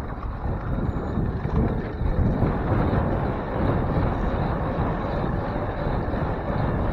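Wind rushing over the microphone of a bicycle handlebar camera while riding: a steady, fluctuating low rush, with city street traffic underneath.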